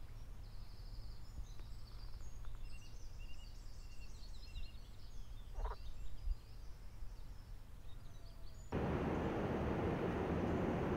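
Outdoor background ambience: faint birds chirping over a low steady hum, then almost nine seconds in it switches suddenly to a louder, steady hiss of outdoor noise.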